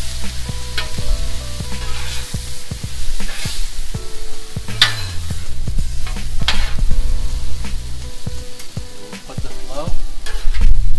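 Egg noodles frying on a hot Blackstone flat-top griddle with a steady sizzle, as a metal spatula stirs them and scrapes and taps on the steel griddle top, the loudest scrapes about halfway through. Background music plays underneath.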